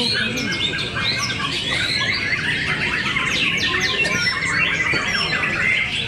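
Many caged white-rumped shamas (murai batu) singing at once: a dense, overlapping chorus of quick whistles, trills and chattering notes.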